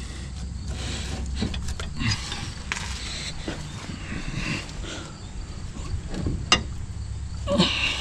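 Wrench work on a truck's rear brake caliper bolts with a breaker bar: scattered metal clinks, and a single sharp knock about six and a half seconds in, over a steady low hum.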